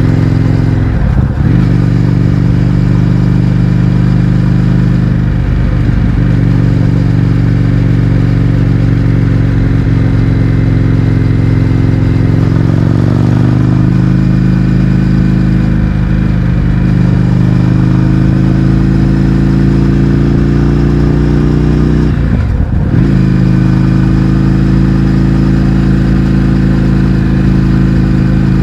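Indian FTR 1200's V-twin engine running through an Akrapovič exhaust with the baffles removed, pulling steadily under way. Its note dips briefly about a second in, climbs smoothly in pitch about halfway through and holds there, then dips once more and picks back up near the end.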